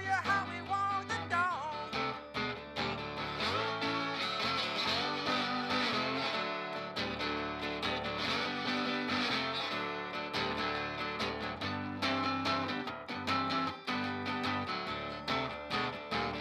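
Mitchell acoustic guitar strummed and picked in a driving blues rhythm, an instrumental break with sharp, frequent strum strokes.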